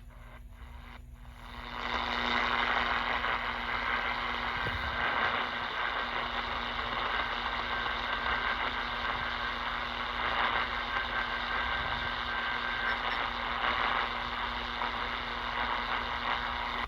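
Steady static-like hiss of a radio signal. It starts suddenly about a second and a half in and cuts off sharply near the end, with a faint thin tone in the middle.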